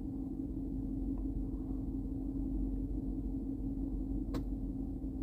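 Steady low background hum, with one sharp click about four seconds in and a faint tick about a second in.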